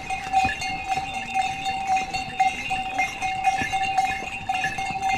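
Bell on a pony's harness ringing without a break as the pony walks, swelling and fading with its stride, over scattered knocks of hooves on a stone path.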